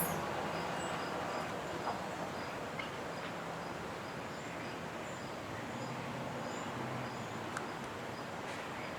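Faint outdoor background noise with insects chirping, a high, evenly repeating chirp, and a light knock of handling right at the start.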